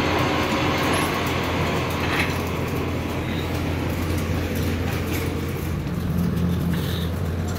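A machine running steadily, with a constant low hum under a broad rumble and a few faint ticks.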